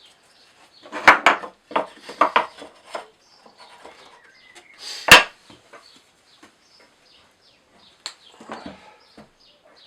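Irregular knocks and clatter of timber and tools being handled, with one sharp, loud knock about five seconds in.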